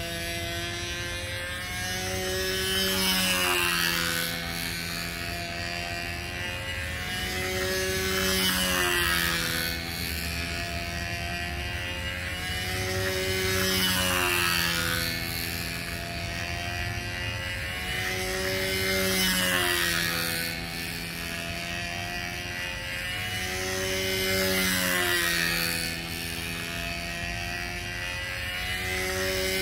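PA .65 two-stroke glow engine of a control-line Tempest 2 stunt plane running at steady flying speed as the model circles. Its note swells and rises in pitch as the plane comes round, then drops back, about every five and a half seconds, once per lap.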